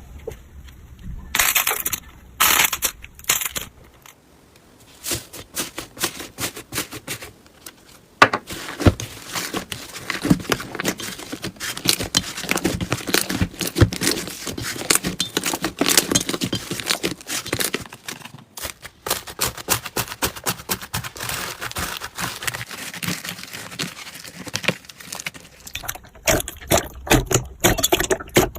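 Slime being squeezed and worked by hand, giving a dense run of small crackling, popping clicks. It is sparse for a few seconds, then a sharp click about eight seconds in, after which the crackling runs thick and steady.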